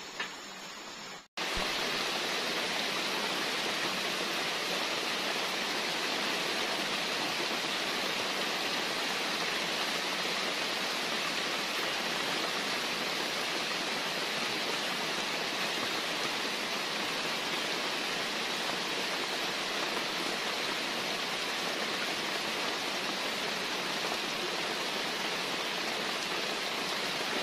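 Steady, even rushing of water, starting abruptly about a second in.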